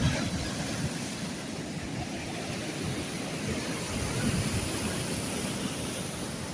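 Sea waves washing on the shore, a steady rushing noise with an uneven low rumble of wind on the microphone, and a short bump right at the start.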